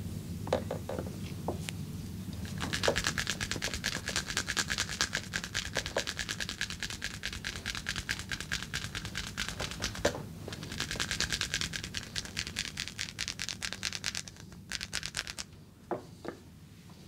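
Hands scratching or rubbing fast and rhythmically during a massage, in two long runs with a short break about ten seconds in. A few light taps come before and after.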